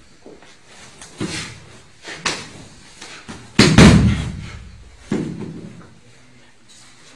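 A person thrown onto a padded mat: a heavy thud about three and a half seconds in. Lighter thumps of bodies and feet on the mat come before and after it.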